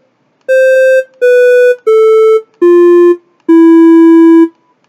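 Synthesized square-wave beeps from the micro:bit MakeCode simulator playing single melody notes: five notes stepping downward in pitch, about two a second, the fifth held for about a second, with another note starting at the very end.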